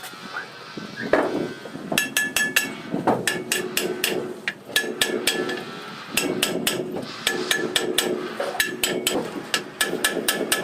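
Quick runs of sharp metal-on-metal strikes, several a second with short pauses, each leaving a brief ringing tone.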